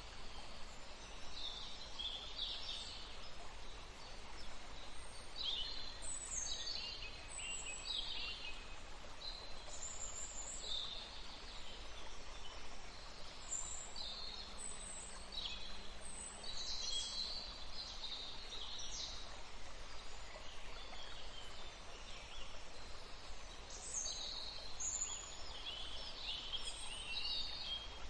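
Birds chirping and singing: many short, high calls, one after another and irregularly spaced, over a faint steady low hum.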